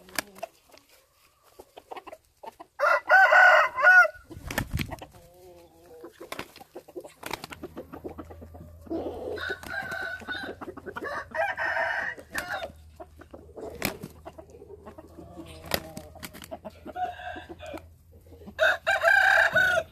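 Chickens calling in loud, drawn-out squawks: once about three seconds in, again for a few seconds around ten to twelve seconds, and again near the end. Between the calls there are sharp clicks and wing-flapping scuffles from two hens sparring, a black Pama hen and a chocolate Thai game hen.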